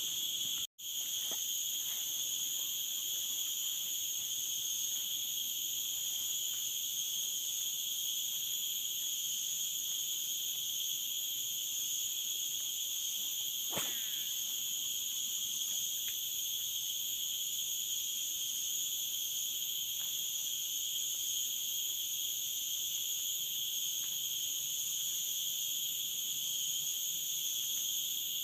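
Steady chorus of forest insects: several shrill, high tones layered and held without a break. A single faint click sounds about halfway through.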